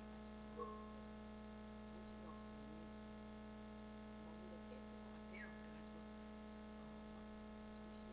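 Faint room tone dominated by a steady electrical hum, with a few tiny faint blips, the clearest about half a second in.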